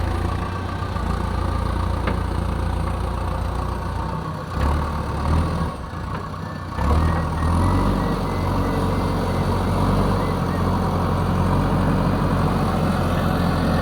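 Diesel engine of a JCB backhoe loader running steadily; about halfway through its note dips and shifts for a couple of seconds, then it settles into a louder, higher-revving note.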